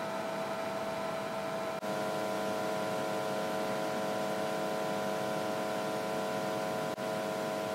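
Steady electrical hum made of several high, even tones over a faint hiss, dropping out briefly twice.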